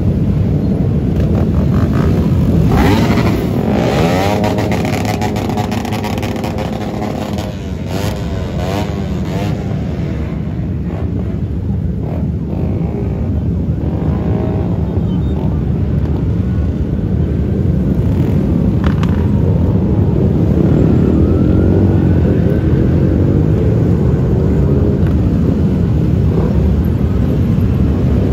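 Motorcycle engines in a dense stream of traffic riding past, with a steady low rumble. Several times the engine pitch rises and falls as bikes pass or rev.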